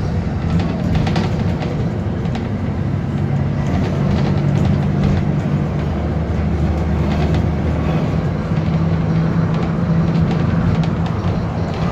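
Alexander Dennis Enviro 400 double-decker bus's diesel engine running under load as the bus drives along, heard from inside the upper deck as a steady drone with occasional rattles. The engine note changes about eight seconds in.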